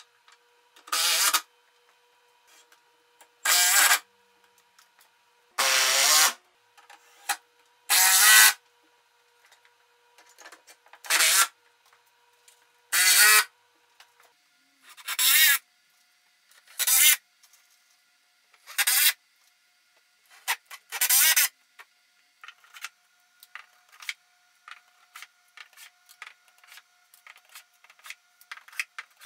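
Quarter-inch plywood dividers sliding and scraping into place in the slots of a wooden shelf. There are about ten short scrapes roughly two seconds apart, then quicker, lighter taps and clicks in the last third.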